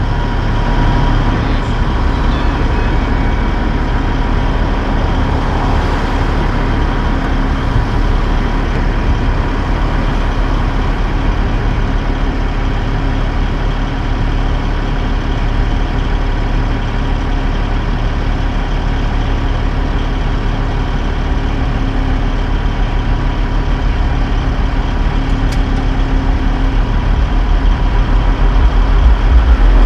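Heavy diesel engine of a Peterbilt car-carrier truck running steadily with a low rumble as the loaded rig pulls slowly forward. It grows louder near the end.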